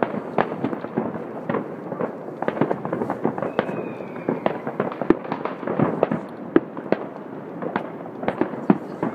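Many fireworks and firecrackers going off across a city at once: a dense, irregular crackle of bangs and pops, several a second, with a faint whistle about four seconds in.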